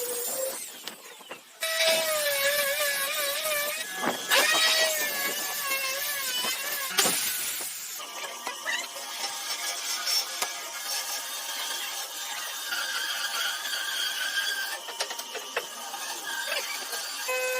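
Woodworking tool sounds in several short, abruptly cut segments, with wavering pitched ringing through the first half and steadier ringing tones later.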